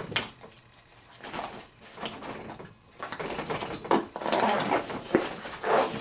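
Nylon shoulder bag being handled and rummaged: faint at first, then fabric rustling and scraping from about three seconds in, with a couple of sharp clicks or knocks.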